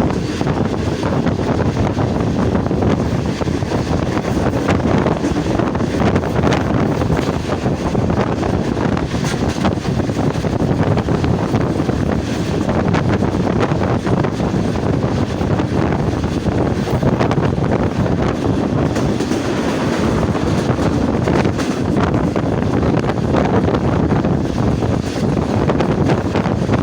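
Passenger train rolling past close by, a steady loud rumble of wheels on the rails with a clickety-clack over the rail joints.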